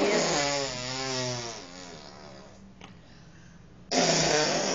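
Toddler blowing raspberries, buzzing his lips while humming so the pitch wavers up and down like a little motor: one long raspberry at the start and a shorter one near the end.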